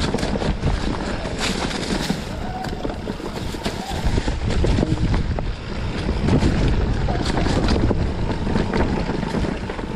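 Mountain bike riding fast down a rough singletrack: tyres rumbling over dirt and rocks and the bike rattling with many small knocks, with wind buffeting the microphone.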